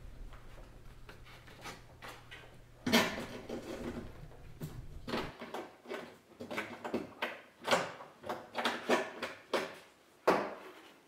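Plastic knocks, clicks and rattles as a Ford F-250 towing mirror is lifted off the door and its wiring harness pulled up and out through the door. There is one sharp knock about three seconds in, then a run of irregular clicks and taps over the second half. A low hum stops suddenly about five seconds in.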